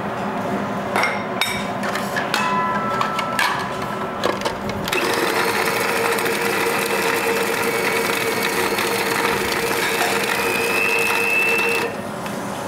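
Plastic clicks and knocks as a food processor's bowl, lid and feed tube are fitted together. Then its motor runs steadily for about seven seconds, chopping pork back fat and garlic into a purée, and stops abruptly.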